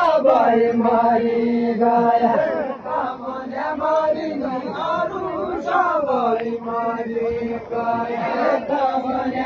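A large crowd of villagers singing a repetitive folk chant together in unison, with long held notes that slide up and down between phrases.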